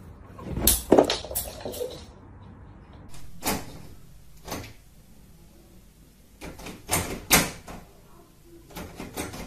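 Sharp knocks in the first two seconds, then a cat hanging on a metal lever door handle makes the handle clack and the door rattle in irregular knocks.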